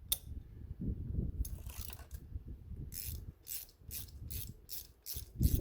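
Socket ratchet clicking as a new spark plug is run down snug in the cylinder head, settling into a steady run of about three clicks a second in the second half.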